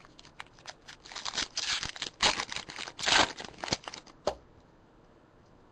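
A 2011-12 Panini NBA Hoops foil card pack wrapper crinkling and tearing as it is ripped open by hand, in a rapid run of crackles, with a sharp click a little after four seconds in.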